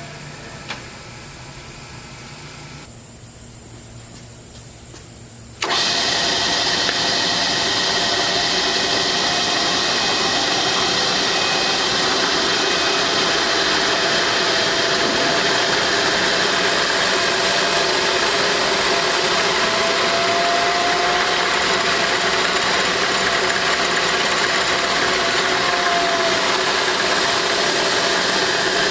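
Comet vertical milling machine's head running with its spindle turning: a steady mechanical whir that cuts in abruptly about six seconds in, after a quieter hum. A faint tone in it bends slightly in pitch twice in the second half.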